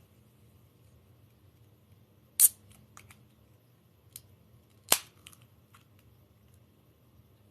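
Two loud, sharp clicks about two and a half seconds apart, with several fainter ticks between and after them.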